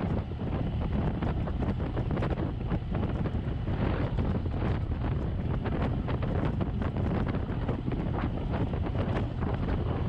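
Inside the cab of a 1929 Ford Model A pickup on the move: its four-cylinder engine and drivetrain run in a steady low rumble under heavy wind noise from the drafty cab, with frequent small rattles and clicks throughout.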